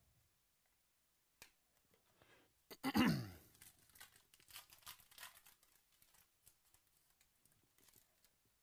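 A foil 2018 Panini Illusions football card pack being torn open by hand, the loudest rip about three seconds in, followed by irregular crinkling of the wrapper that thins out.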